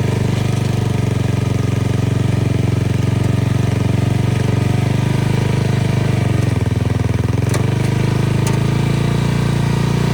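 Riding lawnmower's small engine running steadily under load off-road; its speed sags briefly about six and a half seconds in, then picks back up. Two short sharp knocks come shortly after.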